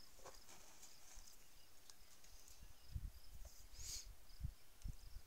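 Quiet outdoor ambience with a few soft low thumps, about three seconds in and twice near the end, and a brief rustle about four seconds in.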